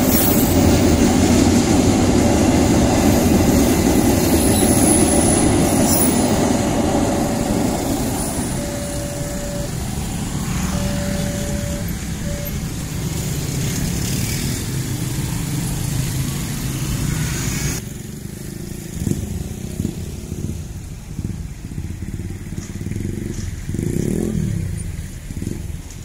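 Freight train of ballast hopper wagons rolling past over a level crossing, a loud steady rumble of wheels on rail that eases after about eight seconds. Motorcycles then idle and pull away, with a few short beeps, and in the last third there is lighter road traffic passing.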